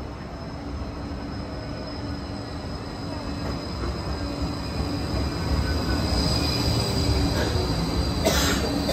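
Bombardier Flexity 2 light-rail tram arriving at a platform, its running noise growing louder as it draws alongside, with a high steady squeal over it. A short hiss sounds near the end.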